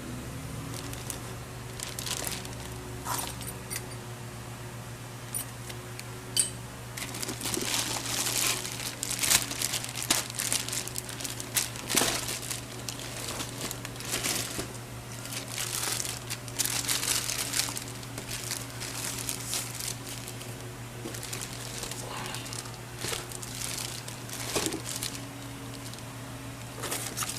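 Packaging crinkling and rustling in irregular bursts as it is handled and unwrapped, over a steady low hum.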